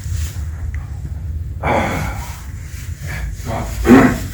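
A person's breathing and snorting sounds: a noisy breath about one and a half seconds in and a louder one near the end, over a steady low rumble.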